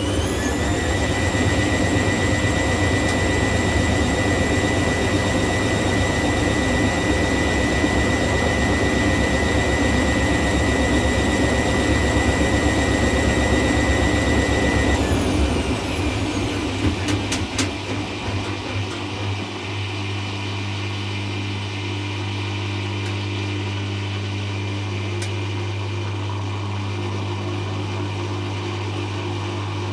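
Hoover Classica 1100 AC164 washing machine on its 500 rpm Sudslock spin: the motor whine rises slightly near the start and holds steady, then about halfway through the motor cuts and the drum winds down with a few clicks, leaving a steady low hum.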